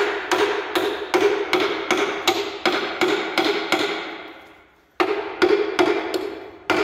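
Hammer blows on metal in a steady run, about three a second, each with a short metallic ring. The blows pause about four seconds in, then carry on.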